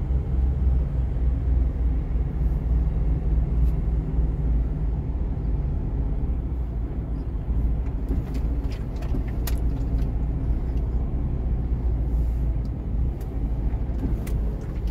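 Truck engine and road noise while driving: a steady low drone that holds at an even level.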